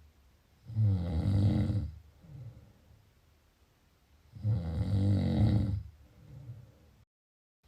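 Snoring: two loud, rattling snores a little under four seconds apart, each followed by a softer breath out. The sound cuts out completely for about half a second near the end.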